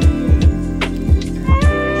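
Background music with held notes and deep drum hits, and a melody line coming in about one and a half seconds in.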